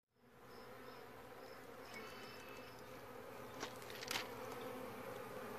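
Honey bees buzzing at a hive entrance: a steady hum of many bees flying in and out. Two sharp clicks stand out about three and a half and four seconds in.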